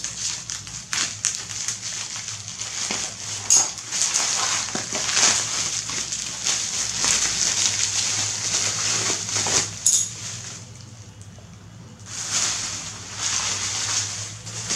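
Plastic bubble wrap crinkling and crackling as it is cut with scissors and pulled off a boxed phone, with many sharp snaps. It eases off for a moment about ten seconds in, then comes back in two more bursts.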